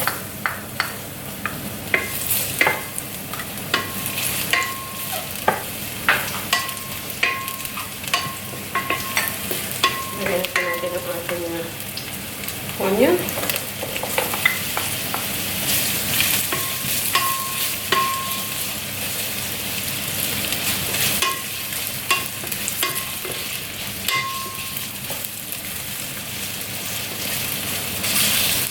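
Garlic sautéing in hot oil in a pan: a steady frying sizzle while a utensil stirs it, with frequent clicks and short ringing taps against the pan. About halfway through, the onion goes in and the sizzle grows louder.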